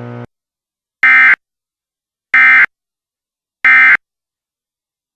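Emergency Alert System end-of-message tones: three identical short bursts of buzzy digital data, evenly spaced, marking the end of the alert broadcast. A steady hum cuts off just before the first burst.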